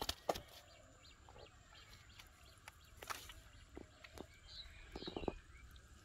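Faint scattered taps and clicks from a fish being handled on dry ground, the strongest right at the start and about three and five seconds in. A bird gives a few short high chirps in the second half.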